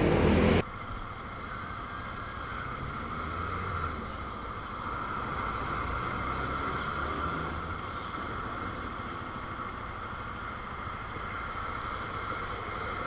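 A burst of wind noise on the microphone cuts off about half a second in. It gives way to a steady vehicle hum with a faint constant whine above it.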